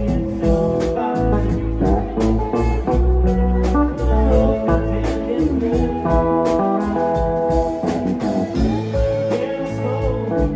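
Live rock band playing: electric guitar and keyboards over a drum kit keeping a steady beat. It is heard mostly through the stage monitors, with a little of the PA.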